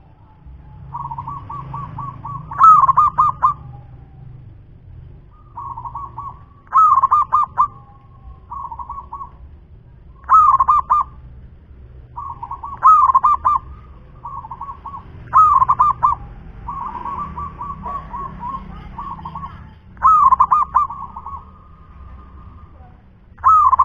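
Local Javanese zebra dove (perkutut) singing its cooing song seven times over: each phrase is a soft rolling coo that leads into a few loud, clear notes, repeated every two to four seconds.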